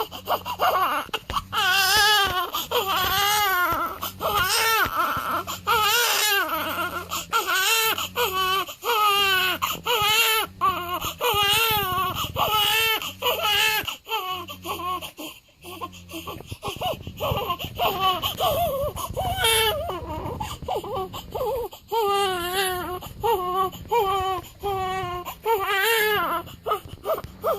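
A one-week-old newborn crying: repeated wavering cries about a second apart, easing off briefly around the middle and then starting up again.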